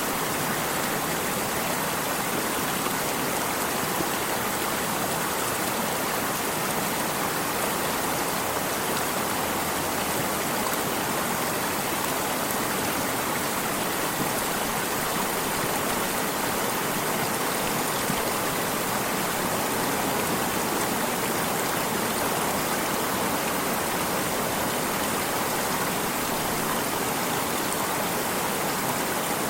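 Stream water flowing with a steady, unbroken rushing.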